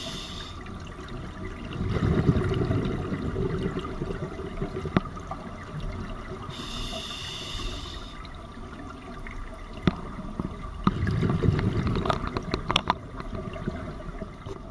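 Scuba breathing underwater through an open-circuit regulator. A hissing inhalation comes about 7 s in, and bursts of bubbling exhaled bubbles come about 2 s and 11 s in. A few sharp clicks from the diving gear are scattered through it.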